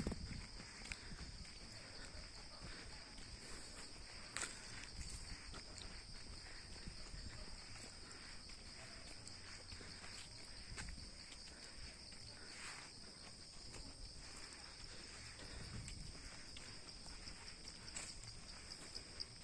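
Steady high-pitched chirring of insects in the undergrowth, with soft, irregular footsteps on the brick-paved path and an occasional sharper tap.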